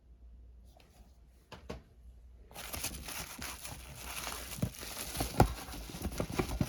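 Packaging being handled: a couple of clicks, then from about two and a half seconds in steady crinkling and rustling of wrapping, with irregular knocks and clicks throughout.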